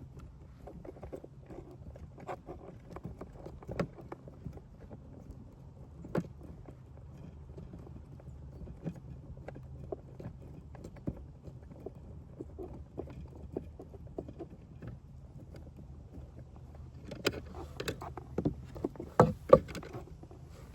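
Scattered light knocks and clicks of hands working the van's electrical control box out of its place, with a cluster of louder knocks and clatter near the end, over a steady low hum.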